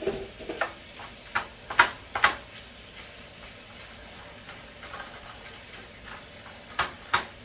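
Plastic slotted spatula chopping and tapping through raw ground beef in a nonstick skillet, breaking up the meat: a run of sharp clicks in the first couple of seconds, a quieter stretch, then two more clicks near the end.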